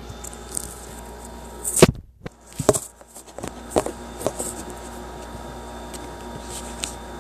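Slime being handled close to the microphone: a few soft knocks and wet clicks, the loudest about two seconds in, then scattered smaller ones over the next few seconds.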